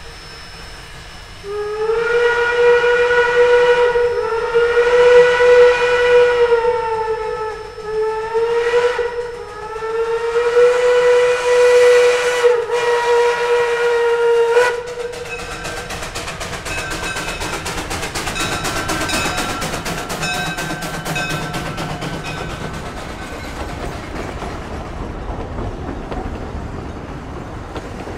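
Two-foot-gauge steam locomotive whistle blowing several long blasts, its pitch sagging briefly between them. Once the whistle stops, about halfway through, a steam train runs past with a quick, even clatter, and a fainter whistle tone sounds under it for a few seconds.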